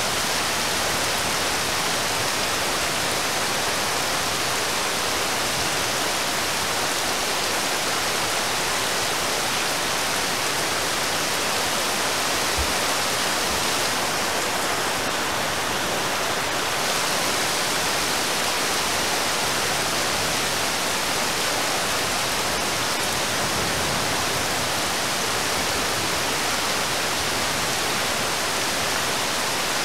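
Heavy rain pouring onto a river's surface: a steady, even hiss that does not change.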